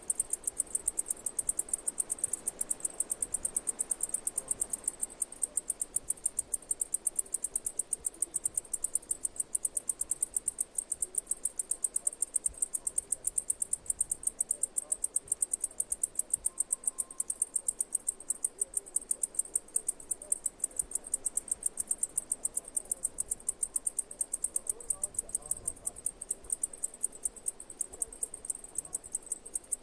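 Insect chirping steadily: a fast, even train of high-pitched chirps that keeps the same rhythm throughout.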